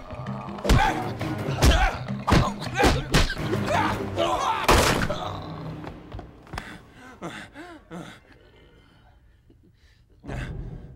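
Movie fight sound effects: a quick run of punch and body-blow impacts with grunts over a dramatic music score, then a quieter stretch with pained groaning, and a loud percussive hit near the end.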